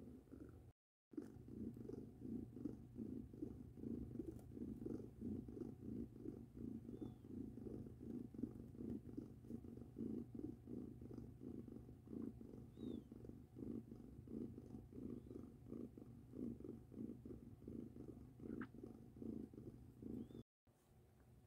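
Mother cat purring steadily, a continuous pulsing purr, as her one-week-old kittens nurse at her belly.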